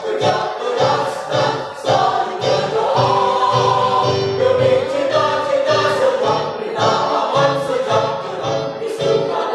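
Mixed choir of men and women singing a march, several voices in parts, steady and loud.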